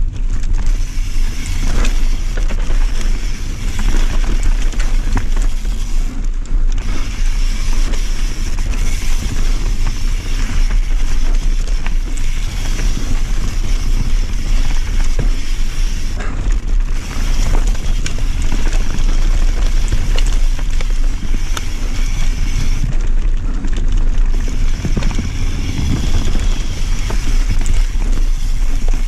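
Enduro mountain bike ridden fast down a rough dirt forest trail: steady wind rush on the rider-mounted camera's microphone and tyre rumble, with the chain and bike rattling and clicking over bumps.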